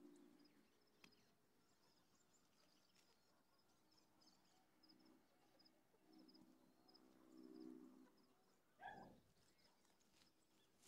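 Faint dawn countryside birdsong: small birds chirping in short high bursts throughout, and a dove cooing low in a few drawn-out phrases. A brief louder call breaks in about nine seconds in.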